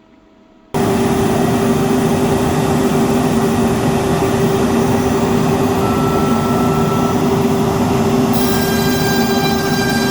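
A large industrial dust extractor switches on suddenly about a second in and runs loud and steady, with a low hum. Around eight seconds in, a set of high steady whining tones joins it.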